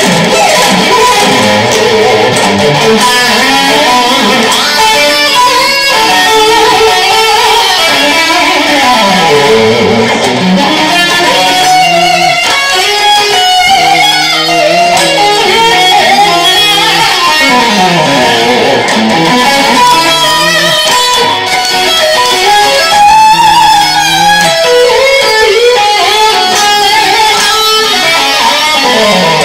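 Electric guitar played fast in a shred style, with quick runs of notes that sweep down and back up in pitch several times.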